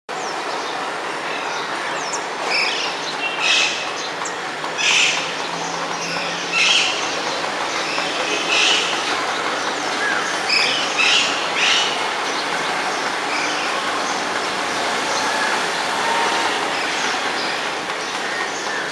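A series of short, high chirping bird calls, about eight over ten seconds and bunched in the first two-thirds, over a steady background hiss.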